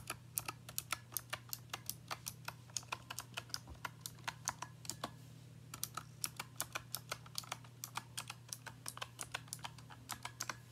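Fast typing on a Razer Huntsman Mini 60% keyboard with optical switches: a rapid patter of key clicks, briefly pausing about halfway through before resuming.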